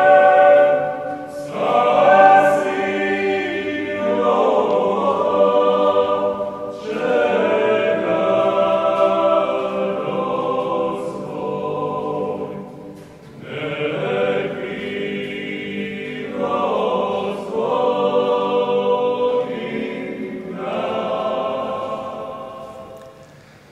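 A choir singing in several phrases of a few seconds each, with short breaks between them, fading out near the end.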